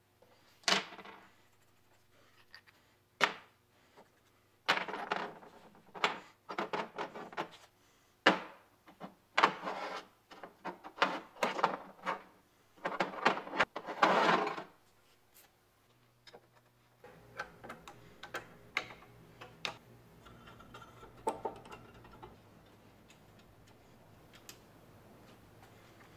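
Small brass and steel pipe fittings clinking and clattering on a steel workbench as they are handled and fitted together, a string of sharp taps through the first fifteen seconds. After that comes a faint steady hum with a few light clicks.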